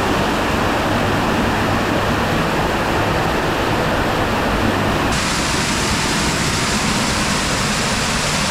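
Waterfall pouring into the bottom of a cave pit: a loud, steady rush of falling water. About five seconds in the sound changes abruptly, turning brighter and more hissy.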